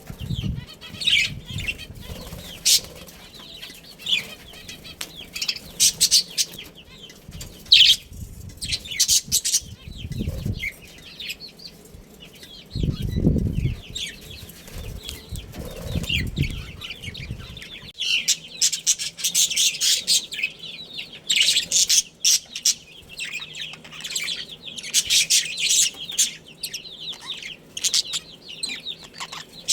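Budgerigars chirping and chattering in quick high notes throughout, with several short bursts of wing flapping, the strongest about halfway through.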